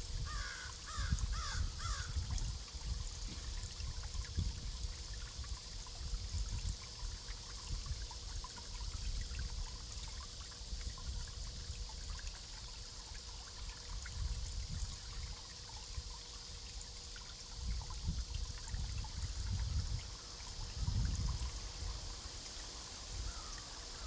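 Water trickling steadily under a constant high hiss, with soft low rumbles coming and going. A quick run of about six short bird calls comes in the first two seconds, and one more call comes near the end.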